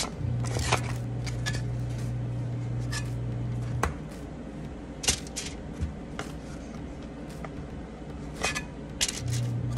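Light clicks and taps of refrigerated biscuit dough being handled out of its can and set down on a foil-lined baking pan. A steady low hum runs underneath, stops about four seconds in, and comes back near the end.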